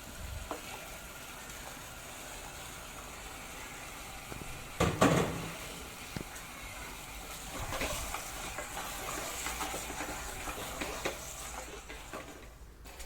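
Masala sizzling in a pressure cooker as washed mutton pieces are added and stirred in, a steady frying hiss with a sharp louder burst about five seconds in. It dies down near the end.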